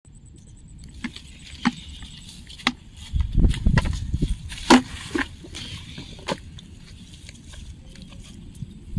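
Footsteps through plants and dry straw, with sharp crackles and snaps of twigs and stalks underfoot, the loudest about halfway through, and a stretch of low rumbling in the middle.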